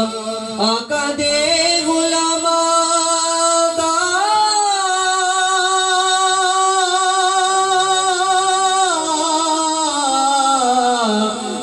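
A man singing an Urdu devotional naat solo into a microphone, with no instruments. He draws out long held notes, rising about four seconds in, holding, then falling away near the end.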